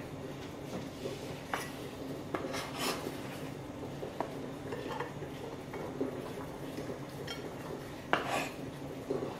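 Cherry tomatoes and cucumber slices being set down on a ceramic plate: a scatter of light taps and clinks, the loudest near the end, over a steady low hum.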